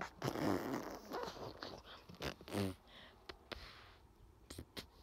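Scuffing footsteps and camera-handling clicks on rocky ground, with two short wordless vocal sounds, like grunts, about half a second and two and a half seconds in.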